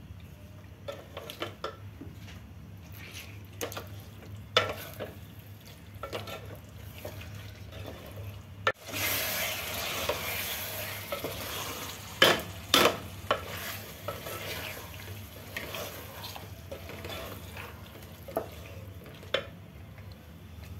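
Wooden spatula stirring and scraping a thick, creamy chicken curry in a metal pot, with small knocks against the pot, while the gravy sizzles over the flame. The sizzle grows louder about nine seconds in, and two sharp knocks come a few seconds later.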